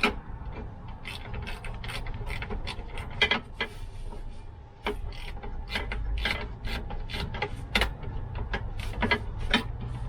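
Ratchet wrench clicking in quick irregular runs of strokes as bolts are worked out of a seat swivel base.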